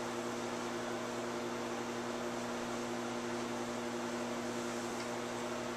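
Steady background hum: a few fixed low tones over an even hiss, room tone from a running machine such as an appliance or fan.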